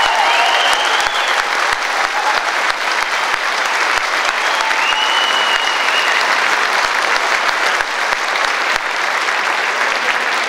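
Sustained applause from a large audience in an auditorium, a dense patter of many hands clapping. A held high tone sounds briefly near the start and again about five seconds in, and the clapping eases slightly near the end.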